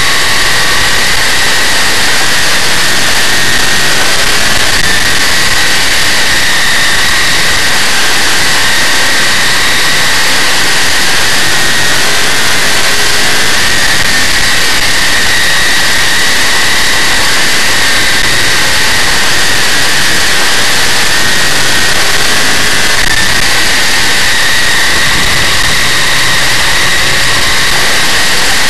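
Big-block Chevrolet V8 of a dirt modified race car running hard under racing load, heard from an onboard camera in the car. Loud and steady throughout, with little rise or fall in pitch.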